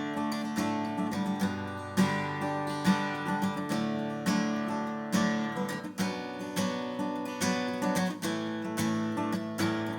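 Martin CEO-7 steel-string acoustic guitar being strummed, chords ringing out with a fresh stroke about every second.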